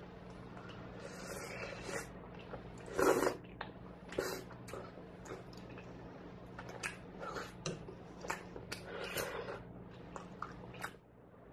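Close-up eating sounds: wet chewing and slurping of seaweed soup with rice-cake slices, taken from a spoon in irregular short bursts, the loudest about three seconds in.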